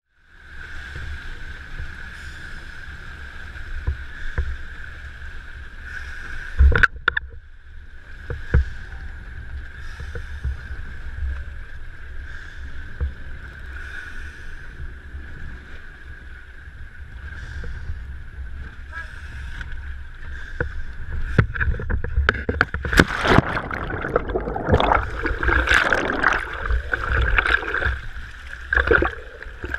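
Choppy sea water slapping and splashing around an action camera held at the surface, over a steady low rumble and a constant thin whine. There is a sharp knock about seven seconds in, and the splashing grows much heavier and louder about two-thirds of the way through.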